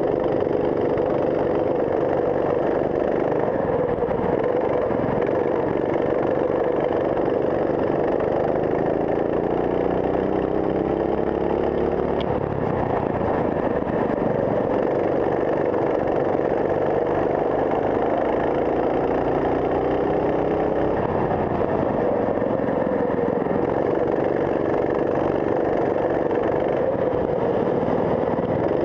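Racing kart engine heard onboard through a lap, rising steadily in pitch on two long acceleration runs about a third and two thirds of the way in, and dropping back between them as the driver lifts for corners.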